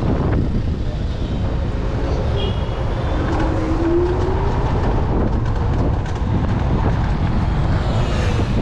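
Steady wind rush over the microphone and road noise from a Segway GT2 electric scooter at speed, with a faint rising whine about three to four seconds in.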